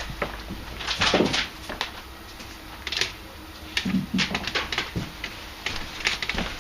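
Control-panel cable being pulled through a hot tub's cabinet: irregular rustling, scraping and light knocks as the cable is drawn and handled.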